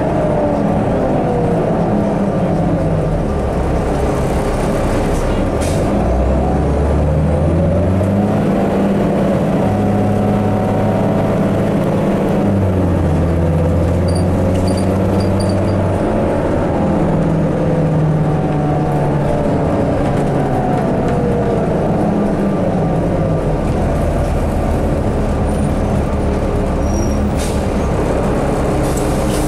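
2006 New Flyer D40i diesel city bus heard from inside the passenger cabin while under way: the engine note falls at first, then rises in several steps as the bus pulls away and shifts up through its gears, with a couple of brief rattles from the cabin.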